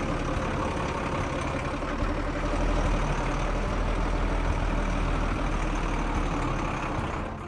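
Heavy diesel engine of an all-terrain crane running steadily with a deep rumble, cutting off just before the end.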